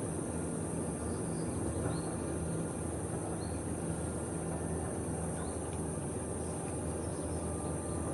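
Outdoor ambience: a steady low mechanical hum with a steady high-pitched insect drone over it, and a small bird's faint, short, high chirps now and then.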